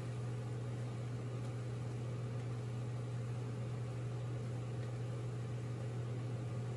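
A steady low hum over an even hiss, unchanging throughout.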